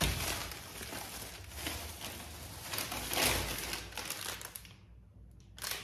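Crinkling and rustling handling noise in irregular bursts, as of packaging or plastic being handled. It dies down briefly, then a short sharp burst comes near the end.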